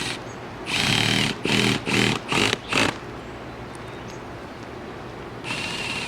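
Cordless power driver running: one burst of about a second, then four quick trigger pulls, and another short run near the end, as used to drive screws into a roof.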